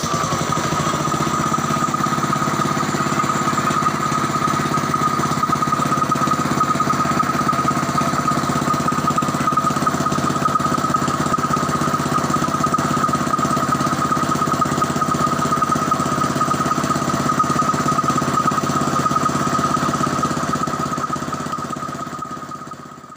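Honda GX160 single-cylinder four-stroke engine driving an air compressor, running steadily with a constant high whine over the engine note; it fades out near the end. The engine is running again now that a cable that had shorted against the body is cleared.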